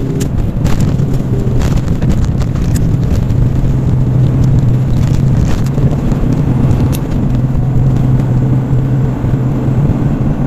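Truck's diesel engine running steadily, heard from inside the cab while driving, with road noise and scattered light clicks and rattles.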